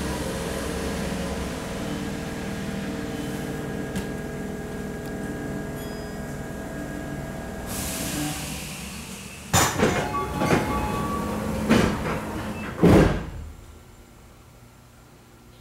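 Tokyu 8500 series commuter car standing at a station: a steady hum of the car's onboard equipment, a short burst of air hiss about eight seconds in, then a run of loud clunks and bangs as the sliding doors close and slam shut, after which the car goes much quieter.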